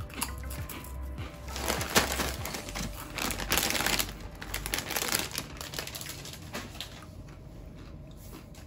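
Potato chip bag crinkling in several bursts during the first five seconds, with background music underneath.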